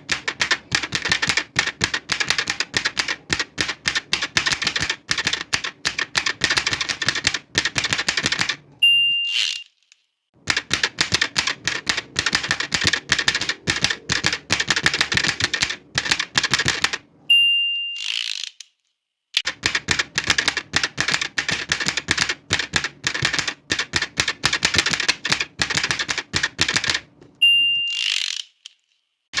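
Old manual typewriter typed on quickly in three long runs of key strikes. After each run comes the margin bell's single ding and a short rushing sweep of the carriage being returned.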